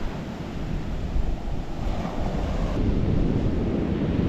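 Strong onshore wind buffeting the microphone over ocean surf breaking on a sandy beach, a steady rushing noise with low gusty rumbles.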